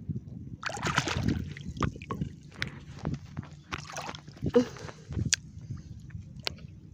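Shallow water splashing and sloshing in irregular surges as someone wades and sweeps a hand through it, searching for clams by feel.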